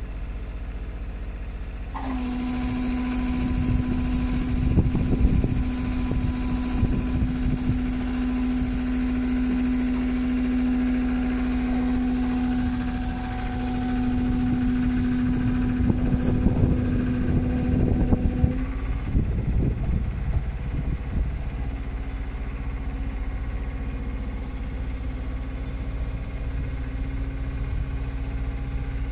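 Loader crane's engine-driven hydraulics running while the boom is raised and folded: an engine runs steadily and a strong whine comes in suddenly about two seconds in, with rattling, then drops away about eighteen seconds in. After that a fainter, slightly higher whine carries on.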